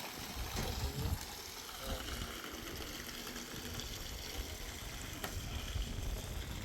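Steady rushing water noise with uneven low rumbling underneath.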